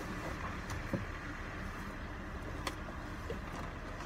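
Steady low rumble inside a car, with a few faint knocks and the rustle of clothing being pulled off over the seat.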